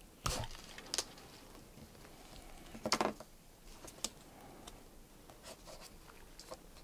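Pliers pulling a strap pin out of a smartwatch's plastic lug: a few scattered small clicks and scrapes of metal jaws on plastic and pin. The loudest is a short cluster of clicks about three seconds in.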